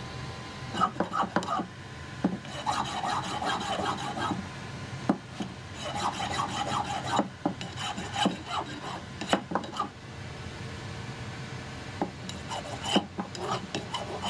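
A steel hand file rasping across a Japanese kanna (plane) blade braced on a wooden block. The file goes in several runs of quick strokes with short pauses between them.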